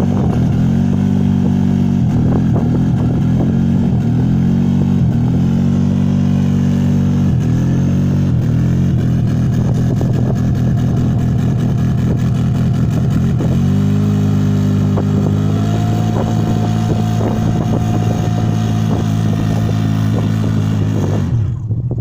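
ATV engine running steadily under throttle, its pitch dipping briefly and recovering several times, then stepping up about two-thirds of the way through; the engine sound falls away just before the end.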